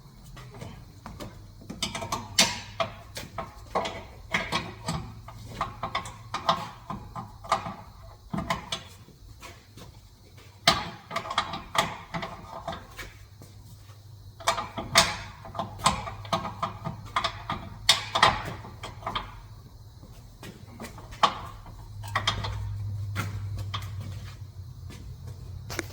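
Hand tools and metal parts clicking, clanking and rattling irregularly during work on the car's transmission mount, over a steady low hum.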